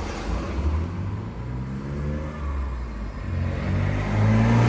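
Car engine accelerating by, its pitch rising and growing louder toward the end: a Mitsubishi 3000GT VR4 with its twin-turbo V6.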